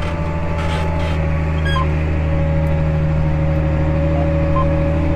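John Deere 8400 tractor's six-cylinder diesel engine running steadily under load while pulling a grain drill, a steady whine riding over the low drone.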